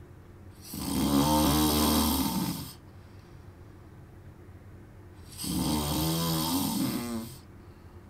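A sleeping man snoring twice, each snore lasting about two seconds, the second starting about five seconds after the first.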